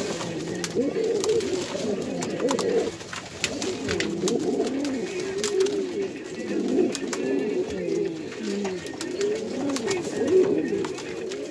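Buchón canario pouter pigeons cooing without a break, the rolling, throaty courtship coo of a male with his crop puffed up as he turns and bows to the hen. Scattered light clicks and taps sound over it.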